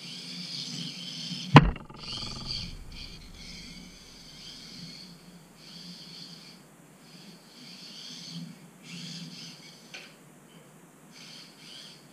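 Kyosho Mini-Z RC car's small electric motor whining in bursts that start and stop as the throttle is worked, with its tyres on the floor underneath. A single sharp knock about one and a half seconds in, the loudest sound, and a light click near the end.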